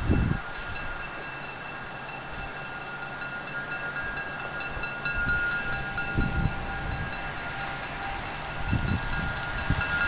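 Locomotive bell on a GMD FP-9 diesel ringing steadily as the locomotive runs around its train, with a few brief low gusts of wind on the microphone.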